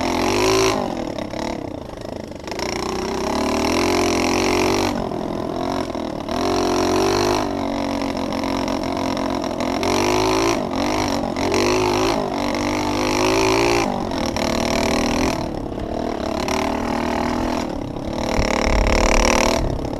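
Pit bike's small single-cylinder engine revving up and easing off again and again as the throttle is worked, heard close from a helmet-mounted camera. A low rumble comes in near the end.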